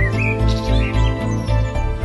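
Background music with a steady pulsing bass beat, about four a second, with bird chirps layered over it during the first second.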